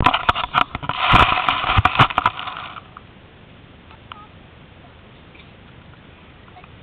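Handling noise on the camera's own microphone as it is set down in grass: a quick run of sharp knocks and scraping rustle that stops about three seconds in, leaving quiet outdoor background with a few faint, soft chirps.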